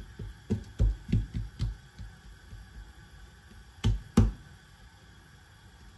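Rolling pin knocking on a board while thin dough is rolled out: a run of dull knocks, two or three a second, then two louder knocks about four seconds in.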